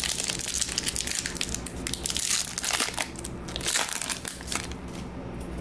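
Crimped plastic wrapper of a Topps Star Wars trading-card pack crinkling and crackling as it is torn open and the cards are pulled out. The crackling dies down about a second before the end.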